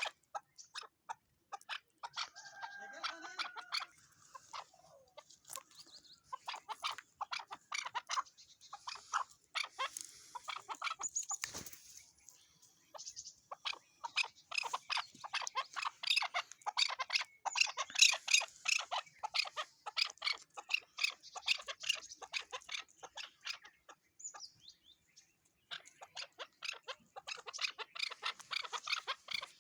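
Chukar partridge (chakor) calling: rapid runs of short, clucking chuck notes, repeated in long bursts with brief pauses between them.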